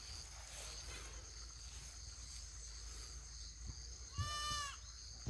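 A goat bleats once, a short high-pitched call about four seconds in.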